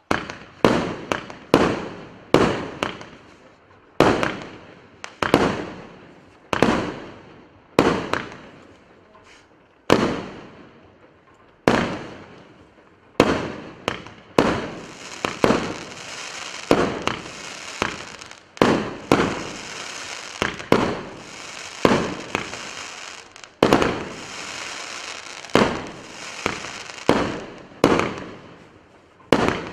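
Russian Fireworks RS859 firework cake firing: a string of sharp bangs, roughly one a second, each with a fading tail. From about halfway through, a steady high hiss fills the gaps between the bangs.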